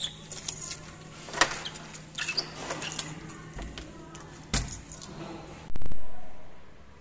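Keys jangling on a keyring and metal clicks from a door lock as it is turned and locked; the sharpest clicks come about a second and a half in and again about four and a half seconds in. Near the end comes a sudden loud low thump that dies away over about a second.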